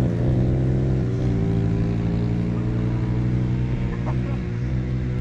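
Small petrol motorcycle engine running at steady revs, with brief dips in pitch about a second in and again near the end.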